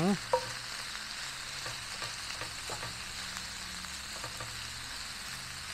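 Ground beef sizzling steadily as it browns in a ceramic-coated non-stick pan over a butane burner. A sharp clink just under half a second in, then light taps and scrapes of a utensil breaking up the meat.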